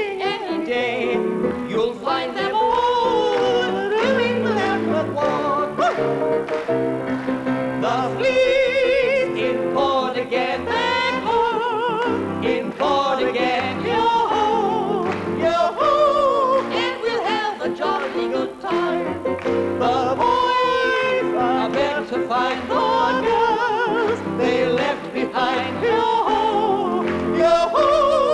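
Two men singing in high, operatic soprano-style falsetto voices with wide vibrato, accompanied by piano.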